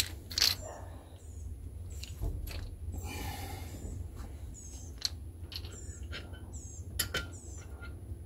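A small bird chirping repeatedly, short high chirps every half second to a second, over a low steady hum. Scattered sharp clicks and knocks run through it, the loudest about seven seconds in, with a brief rushing noise about three seconds in.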